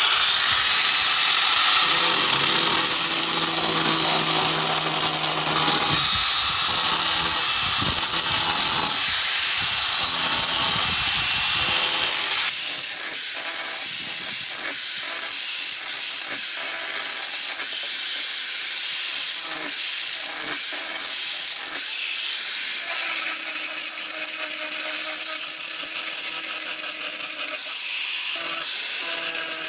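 Angle grinder with an abrasive disc grinding rust off a steel grass-cutting knife blade, running steadily with a high whine as the disc bites the metal. The lower part of the sound drops away about twelve seconds in.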